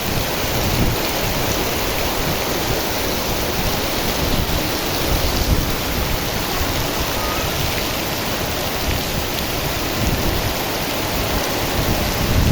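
Torrential rain pouring down in a windstorm: a dense, steady hiss of rain, with wind buffeting the microphone in irregular low rumbles.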